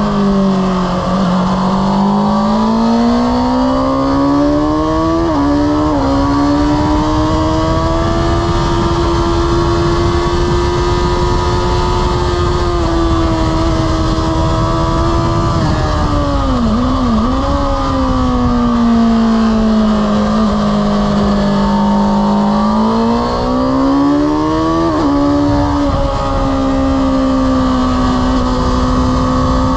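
A Honda sport motorcycle's engine under hard riding on track. It revs up and down through the gears, with quick drops in pitch at gear changes about 5 and 25 seconds in. It slows in pitch around the middle as the bike slows for a corner, then rises again, over steady wind rush.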